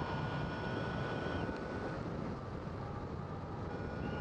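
Airflow rushing past a hang glider pilot's helmet in flight, picked up by a microphone inside the helmet as a steady wind rush. A faint steady high tone drops out about halfway and returns near the end.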